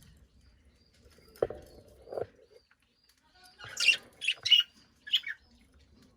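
Caged budgerigar chirping: a short, lower, rougher call about a second and a half in, then a quick run of four or five sharp, high chirps in the second half.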